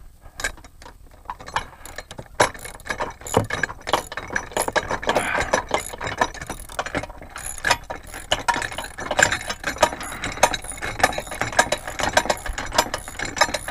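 Ratcheting wrench clicking in quick runs of strokes as the nuts on the bolts clamping an RV bumper receiver bracket are tightened, with occasional metal clinks against the bracket.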